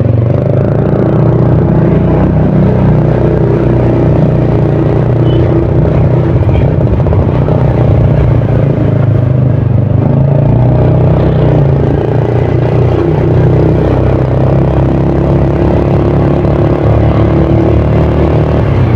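Motor vehicle engine running steadily while on the move, with road and wind noise, at a fairly constant speed.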